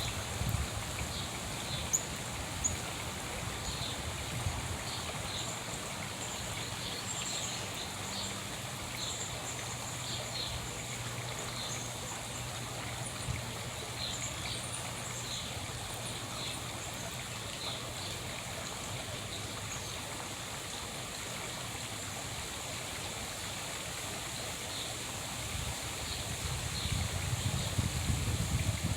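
Small wild birds chirping, with short high calls repeating many times, over a steady hiss like running water.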